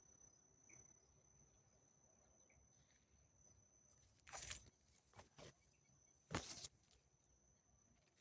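Faint countryside ambience: a steady high-pitched insect trill, such as a cricket's, with four short rushing bursts of noise between about four and seven seconds in.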